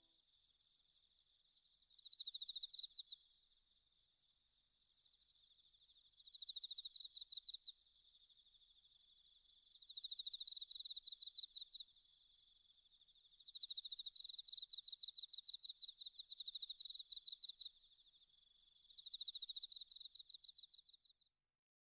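Faint insect chirping: high, rapid pulsed trills that swell in bursts every few seconds over a steady chirr, cutting off suddenly near the end.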